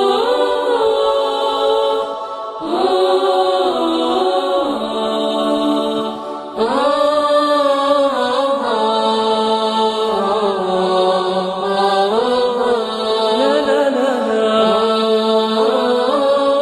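Unaccompanied vocal chant: a lead voice sliding through long, ornamented held notes over steady backing voices, with short pauses about two and six seconds in.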